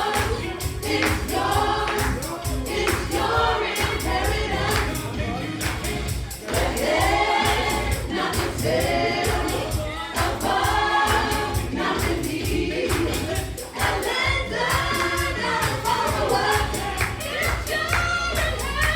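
A choir singing gospel worship music over a band with a steady beat.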